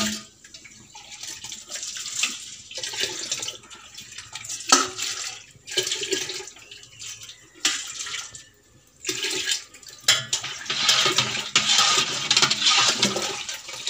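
Rice and water poured in several pours from a steel vessel into a steel pot of hot water, splashing, the longest pour near the end. This is rice being added to the heated water to cook kanji (rice gruel).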